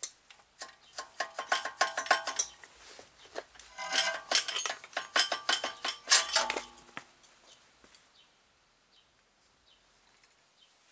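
Repeated metallic clinks, scrapes and ringing clanks as a BMW E93 front strut, its spring held in a spring compressor, is worked out of the spread strut housing. The clanking stops about seven seconds in.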